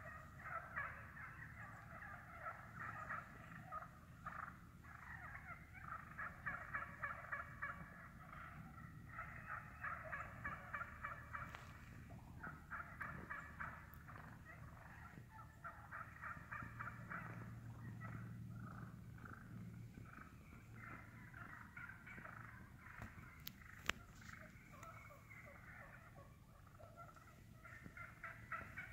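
A flock of wild turkeys purring and clucking as they feed, with rapid rolling trills from several birds overlapping almost without pause.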